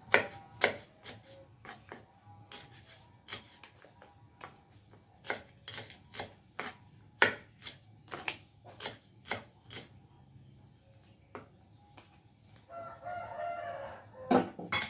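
Kitchen knife slicing shallots on a wooden cutting board: sharp knocks of the blade on the board in an uneven rhythm, about one or two a second, thinning out after about ten seconds. Near the end a rooster crows in the background.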